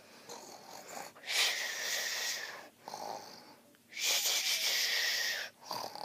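Barney plush toy playing its recorded snoring: two slow snore cycles, each a softer breath in followed by a loud, long, hissing breath out that dips slightly in pitch as it ends.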